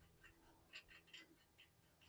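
Near silence with a few faint, short clicks about half a second apart.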